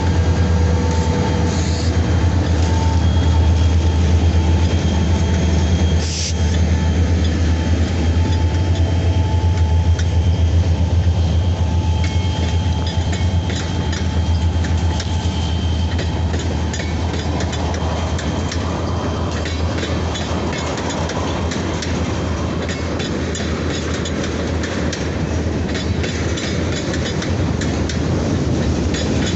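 Diesel railroad locomotive running with a steady low engine drone, rail wheels squealing thinly on the track, and a run of clicks and clanks from wheels over rail joints. The drone eases somewhat about halfway through.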